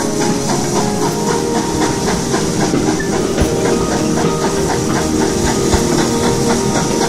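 Steam locomotive hauling the train, its exhaust steam hissing steadily.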